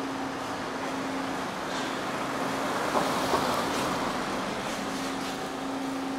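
Street traffic ambience: steady road noise that swells midway as a vehicle passes, over a low hum that comes and goes. Two sharp clicks about three seconds in.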